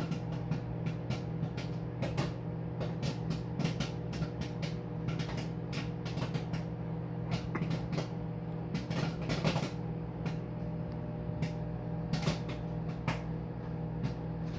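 Microwave popcorn popping: irregular sharp pops, several a second, over the steady hum of the running microwave oven.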